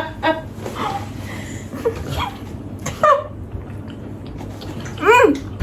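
Women's non-verbal vocal sounds, short laughs and exclamations, with a loud rising-and-falling cry about five seconds in, over a steady low hum.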